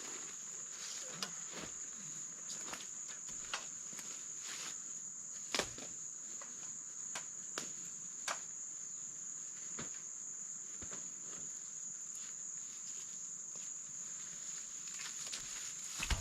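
A steady, high-pitched insect drone runs throughout. It is broken by scattered sharp snaps and knocks, the loudest about five and a half seconds in.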